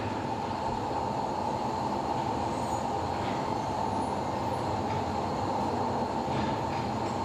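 Steady, even mechanical noise of foundry equipment running during a bell casting, with a few faint clicks.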